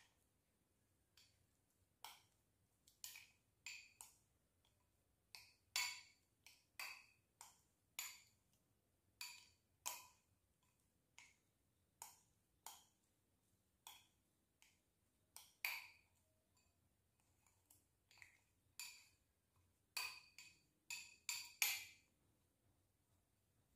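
Hand-mixed fishing-bait dough in a small glass bowl, fingers knocking the glass rim and sides in light, ringing clinks. The clinks are irregular, about one a second, with a quick cluster near the end.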